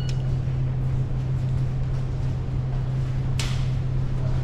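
Steady low mechanical hum under an even hiss, with a short rustle about three and a half seconds in.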